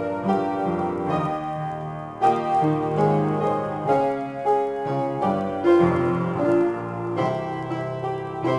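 Piano played solo in a free improvisation: overlapping sustained chords and melody notes, struck about once a second, with a louder chord about two seconds in.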